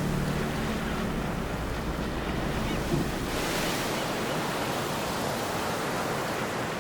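Sea surf washing onto a shore, a steady rush of waves, swelling briefly about halfway through.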